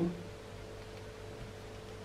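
Quiet room tone: a low, even hiss with a faint steady hum, after a man's word trails off at the very start.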